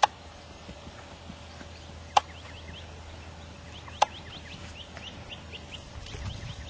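A horse cantering on sand, its hoofbeats soft, with three sharp clicks about two seconds apart. From about two seconds in, a bird chirps in quick repeated high notes.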